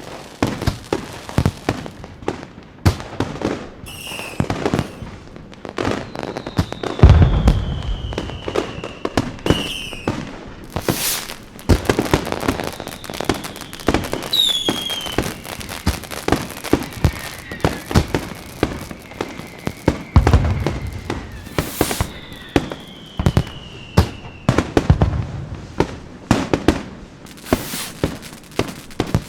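Fireworks going off: a dense run of sharp pops and crackling bangs, with deep booms about seven and twenty seconds in. Long whistles slide down in pitch, twice for several seconds and once briefly in the middle.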